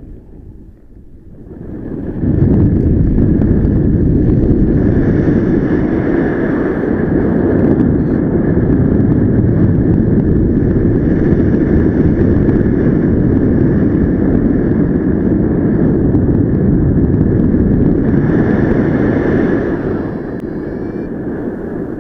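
Wind buffeting the camera's microphone in paraglider flight: a heavy, low rushing noise that comes up sharply about two seconds in and eases slightly near the end.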